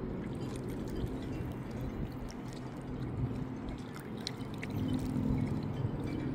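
Small waves lapping and gurgling against the rocks at the water's edge of a windy lake.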